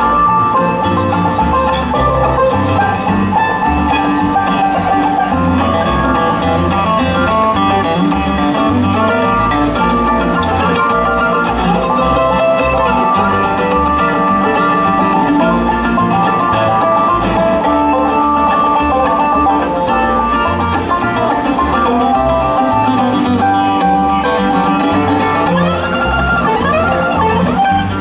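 Live bluegrass band playing an instrumental break, with banjo and guitar picking.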